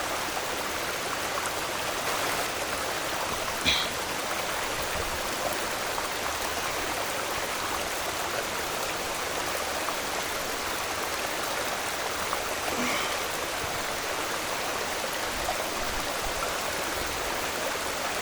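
Steady rush of water tumbling down a rocky waterfall stream. A short sharp sound stands out about four seconds in, and a fainter one near thirteen seconds.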